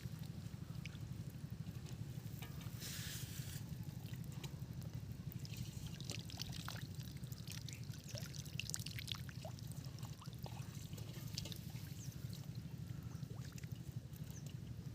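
Shallow water trickling and splashing in small irregular drips and dribbles, over a steady low rumble.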